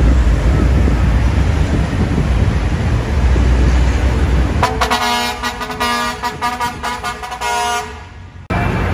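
Low rumble of heavy vehicles and road traffic, then about halfway through a truck horn sounds: one long multi-note blast with quick stutters in it, lasting about three seconds before it fades and the sound cuts off.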